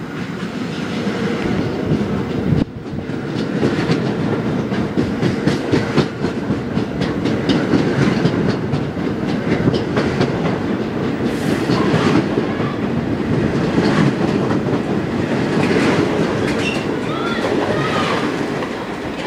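R46 subway train running through the station at speed without stopping, passing close by; a loud, continuous rumble with rapid clatter of the wheels over the rail joints.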